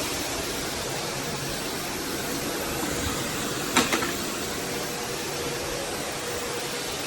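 Eureka WhirlWind bagless cylinder vacuum cleaner running steadily, an even rushing suction noise with a faint steady motor hum. There is one brief knock about four seconds in.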